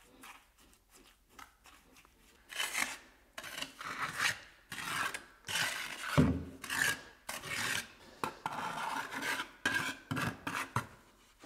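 Steel trowel scraping and smoothing wet concrete over a patched hole in a tiled floor: a run of short rasping strokes, faint at first and then repeating every half second or so. There is one dull knock about six seconds in.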